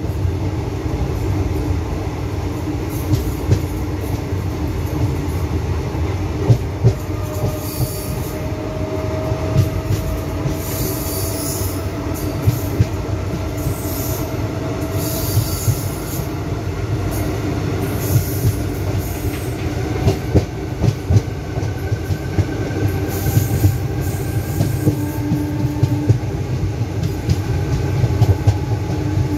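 A moving passenger train heard from an open coach doorway: a steady rumble with frequent irregular wheel-on-rail clicks and clatter, and faint whining wheel squeal that slowly rises in pitch, as it runs close past a line of covered goods wagons.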